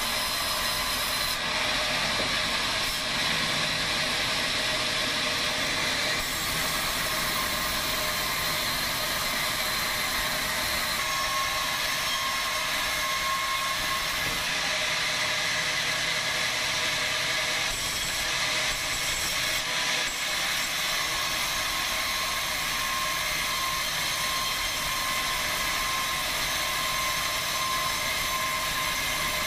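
Sawmill band saw running and ripping timber boards lengthwise: a steady, even noise with several high whining tones.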